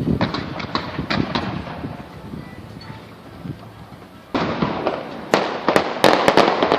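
Fireworks display: aerial shells bursting with booms and crackle. After a short lull, a loud burst about four seconds in is followed by a rapid string of sharp cracks.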